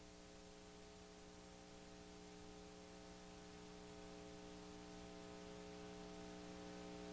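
Near silence: a faint steady electrical hum with background hiss, slowly growing a little louder.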